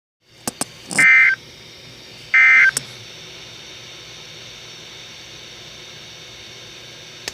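Two short bursts of shrill digital data tones from an Emergency Alert System broadcast, the coded EAS data signal, about a second and a half apart, with a few sharp clicks around them. After that comes a steady radio hiss.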